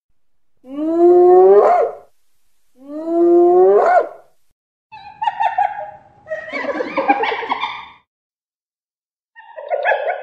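Spotted hyena calling: two long whoops, each rising in pitch, then rougher, noisier calls about halfway through and again near the end.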